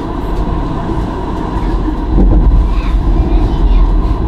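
Stadler Variobahn tram running along its track, a steady rumble heard from inside the front cab, growing louder about two seconds in.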